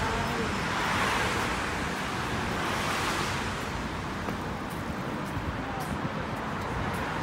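Road traffic noise from city traffic, with wind rushing on the microphone. The noise swells up about a second in and again around three seconds in.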